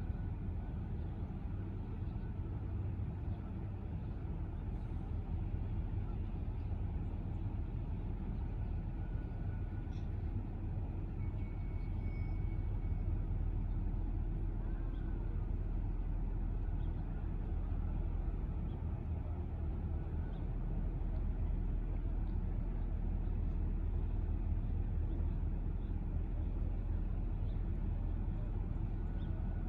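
Steady low engine rumble running continuously, like a vessel or vehicle engine idling, under a general harbour-side ambience.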